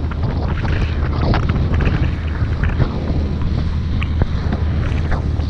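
Tohatsu 20 hp outboard motor running steadily under way as the inflatable boat pushes through choppy water, with water slapping and spraying against the hull and wind buffeting the microphone.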